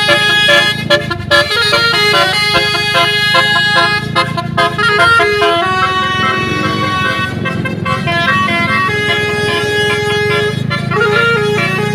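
Indonesian telolet bus horn: a multi-trumpet musical air horn playing a quick tune of stepped notes that change pitch several times a second, over a steady low rumble.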